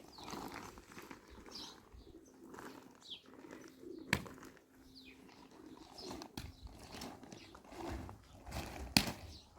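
Birds chirping with short, high, falling calls, and two sharp knocks: one about four seconds in, one near the end.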